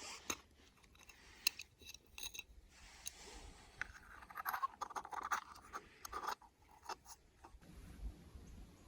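Camping gear being handled and packed: scratching and rustling with many sharp clicks and knocks, busiest in the middle.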